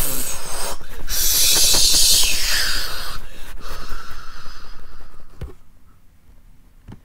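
A loud, long rushing blast of noise with rumbling thumps underneath, a play-acted explosion while the camera is shaken. It fades out after about five and a half seconds.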